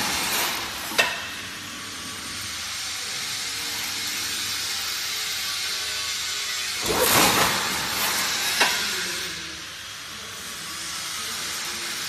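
Crimped wire mesh weaving machine running: a steady hissing mechanical noise, with a sharp click about a second in, a louder surge about seven seconds in and another click shortly after.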